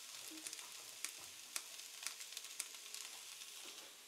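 Soya chunks and sliced onion sizzling faintly in a frying pan on a gas burner: a steady hiss with scattered sharp crackles.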